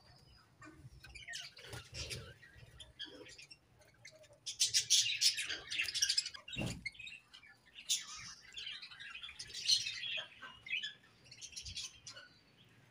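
A flock of budgerigars chirping and warbling together, many short high calls overlapping, in busy bursts that grow loudest about a third of the way in and again near two-thirds through.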